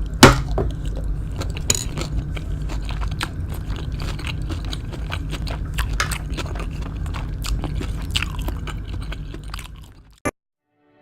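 Close-miked eating sounds: biting and chewing kwek kwek, deep-fried battered quail eggs, in many short crunchy, wet strokes, with one loud bite just after the start. The sound fades out about ten seconds in.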